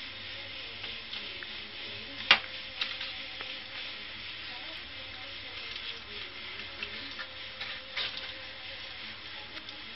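Crackling and scraping as a silicone spatula and fingers peel the skin off baked aubergines on crumpled aluminium foil, over a steady hiss. There is a sharp click a little over two seconds in and another about eight seconds in.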